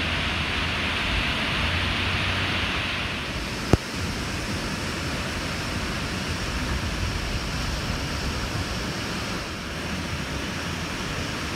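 Waves breaking and washing up on a sandy beach, a steady rushing surf. A single sharp click comes about four seconds in.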